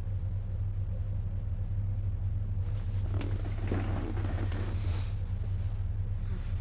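A steady low rumble, with a brief patch of crackly, rustling noise and a few clicks over it about three to five seconds in.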